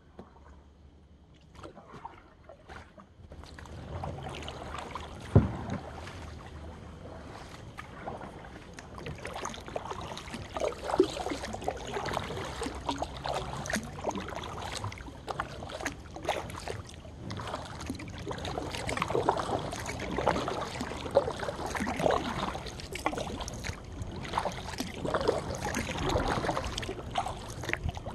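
Kayak paddle strokes dipping and splashing in calm river water, with water rippling along the hull. It starts almost quiet and picks up about four seconds in, with one sharp knock a little after that.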